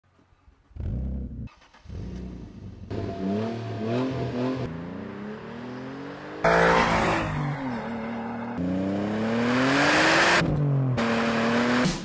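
Alfa Romeo 156's 2.5-litre Busso V6 through a Novitec exhaust, revving and then accelerating hard. Its pitch swings up and down at first, then it gets suddenly louder about six and a half seconds in and climbs in pitch, with a brief drop near the end, as at a gear change.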